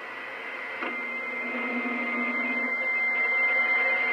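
Stryker CB radio receiving a skip channel: steady static hiss from the speaker, with a steady high whistle coming in about a second in as a signal rises.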